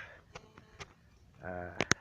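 A pause in a man's narration: a few faint clicks, then a short voiced hesitation and two sharp clicks near the end as his speech resumes.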